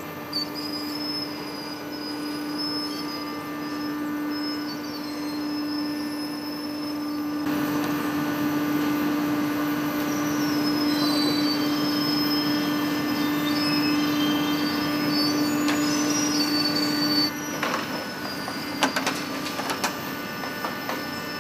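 Date-processing machinery running with a steady hum and wandering high-pitched squeals over it; the hum drops away about three-quarters of the way through, followed by a few sharp knocks.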